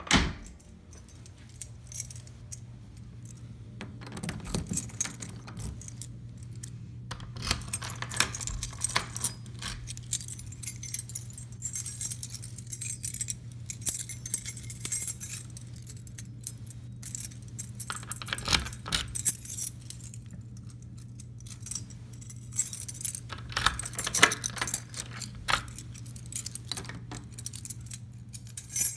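Keys jangling and clinking on a key ring in several bursts lasting a second or two each, with sharp metal clicks as keys work the door's deadlocks. A steady low hum runs underneath.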